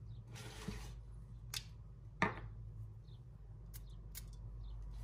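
A glass perfume bottle being slid out of a thin cardboard box and handled: a brief cardboard rustle, then a few small clicks and taps of glass and plastic cap against card.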